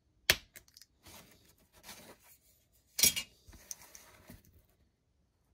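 Utility knife blade scoring thin styrene plastic sheet along a metal ruler: light, scratchy scraping strokes, with two sharp clicks, the first just after the start and the louder one about three seconds later.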